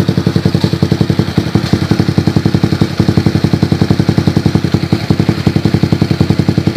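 Yamaha Jupiter MX motorcycle's single-cylinder four-stroke engine idling steadily through a replica Akrapovic aftermarket exhaust. The exhaust note is loud and even, at about twelve beats a second.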